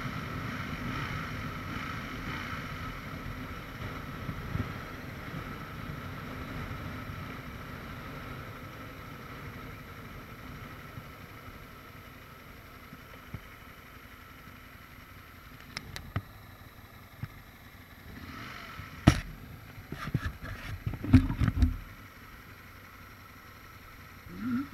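Riding noise from an Aprilia RSV 1000 R sportbike: wind rush on the microphone with its engine beneath, dying down as the bike slows. A few sharp knocks and low thumps come near the end.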